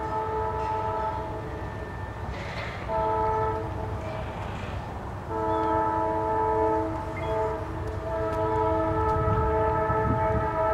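Approaching diesel locomotive's air horn sounding a chord of several notes in repeated blasts, long ones with short gaps and a shorter one between, over the low rumble of the oncoming train, which grows near the end.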